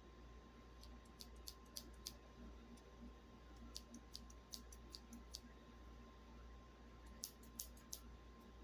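Faint, light clicks in three short clusters from a pair of small plastic safety scissors being handled and worked open and shut.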